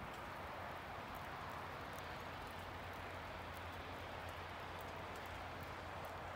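Steady outdoor hiss during a wet snowfall, with faint scattered ticks of wet snow pattering on branches and surfaces.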